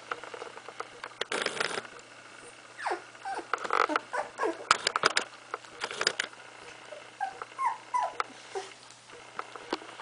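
16-day-old puppy whimpering in short, high squeaks that bend up and down, in two bouts, mixed with light scratches and rustles from the fleece bedding as it crawls.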